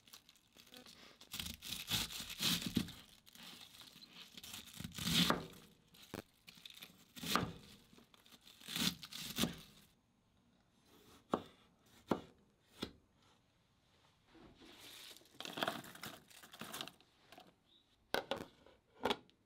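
Fresh cabbage being roughly cut and handled: crisp crunching and tearing of the leaves in several bursts, with a few sharp knocks in between. Near the end, a plastic lid clicks onto a colander bowl.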